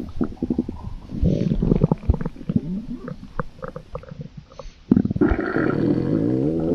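Stomach rumbling sound effects: a run of short gurgles and pops, then from about five seconds in a louder, long rumble whose pitch wavers.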